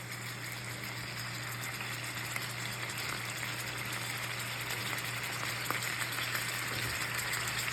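Thick-cut lamb chops searing in hot oil in a skillet: a steady sizzle with a few faint pops, growing slightly louder.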